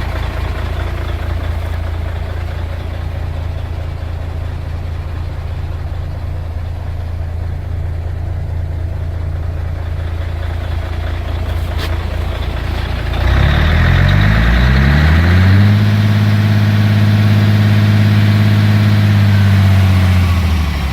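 Mercedes-Benz Actros 1840 tractor unit's V6 diesel engine idling steadily, then revved up a little past halfway and held at a higher, louder speed before dropping back near the end.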